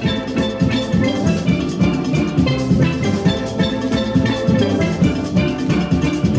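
Background music with a pitched melody over a steady beat.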